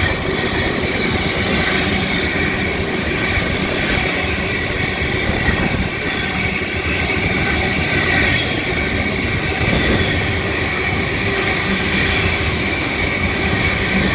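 Freight train rolling past: a steady, continuous noise of wagon wheels running on the rails.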